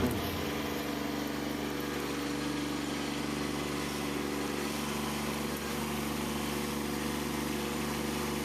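Kubota B2601 compact tractor's diesel engine running steadily at a constant speed.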